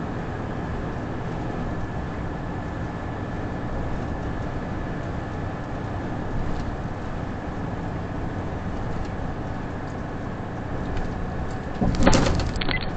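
Truck on the move, heard inside the cab: steady engine and road noise. Near the end there is a brief, louder clatter lasting about a second.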